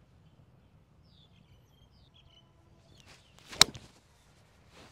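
Golf pitching wedge swung down through the ball: a faint swish, then one sharp click of the clubface striking the golf ball about three and a half seconds in. Birds chirp faintly earlier on.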